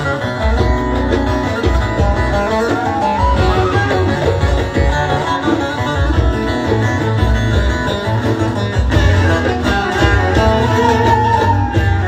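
Live band playing Turkish music through loudspeakers: a plucked bağlama and electric guitar carry the melody over a steady pulsing bass beat.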